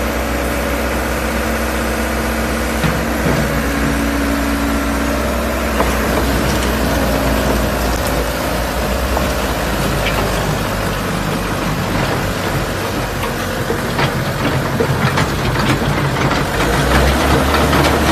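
Hitachi EX60-1 mini excavator's diesel engine running steadily. Sharp clicks and knocks come more often in the second half, and the engine gets a little louder near the end.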